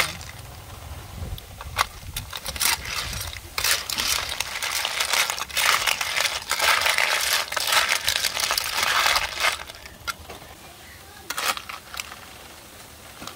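Snail shells clattering and scraping against a metal wok as they are stirred with a metal spatula, in rattling stretches with sharp clicks; the stirring dies down about ten seconds in.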